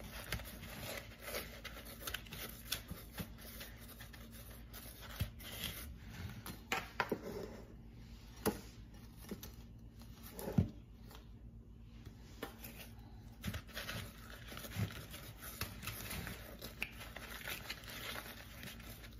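Fried doughnuts being tossed by hand in a plastic bowl of cinnamon sugar: gritty rustling and scraping of the sugar, with scattered light taps and knocks against the bowl.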